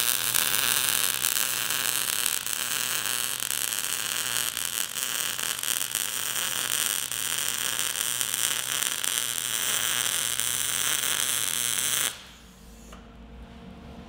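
Eastwood MIG 135 wire-feed welder's arc running a bead on quarter-inch steel: a steady crackling hiss that cuts off about twelve seconds in, leaving a faint hum. The settings in use do not get full penetration on steel this thick.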